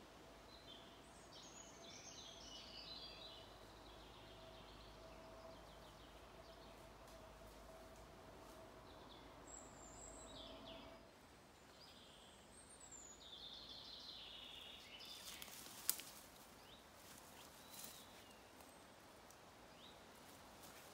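Quiet woodland ambience: small birds chirping and calling in short phrases, with a faint steady hum through the first half. Later come rustling and a few sharp cracks; the loudest crack is about two-thirds of the way through.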